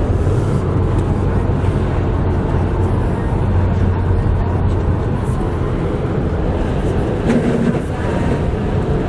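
Steady engine and tyre noise heard inside a Honda Accord's cabin while it drives on a snowy road, with a constant low hum under it.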